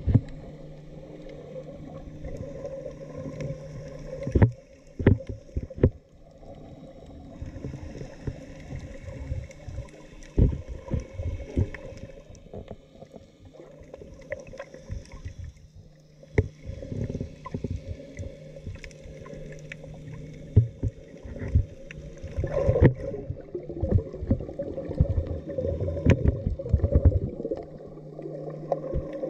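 Muffled underwater sound of a GoPro Hero 6 held underwater while snorkeling: a steady low hum with irregular knocks and thumps scattered throughout, heavier near the end.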